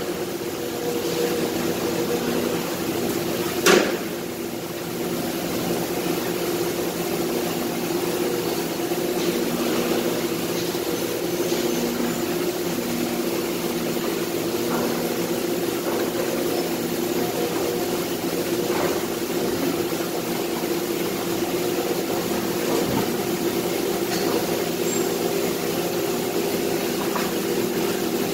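Steady hum of running factory machinery, with one sharp knock about four seconds in and a few faint clicks later.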